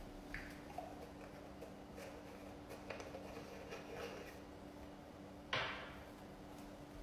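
Faint kitchen handling noises, light knocks and rustles, with one louder clack about five and a half seconds in, like a drawer or cupboard shutting, over a steady low hum.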